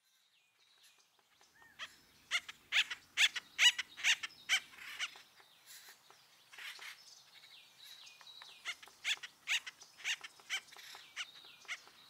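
Acorn woodpeckers calling: a quick run of loud, repeated calls, about two or three a second, starts about two seconds in, then quieter calls carry on.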